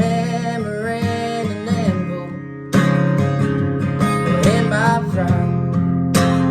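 Acoustic guitar strummed in a country song's instrumental outro, with a brief lull about two seconds in before a hard strum brings it back in.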